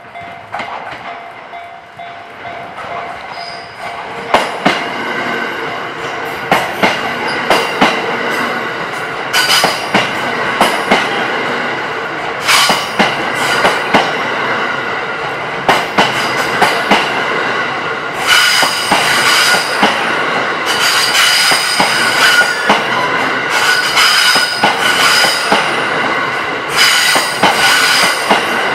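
The Cassiopeia sleeper train rolls past, growing louder, its wheels clacking sharply over rail joints. From about two-thirds of the way in, a steady high squeal of the wheels on the rails rings over the clacking.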